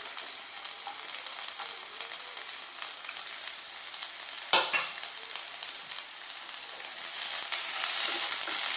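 Chopped onion, garlic and green chillies sizzling in hot oil in a nonstick frying pan, a steady hiss with one sharp clack about four and a half seconds in. The sizzle grows louder near the end as they are stirred with a spatula.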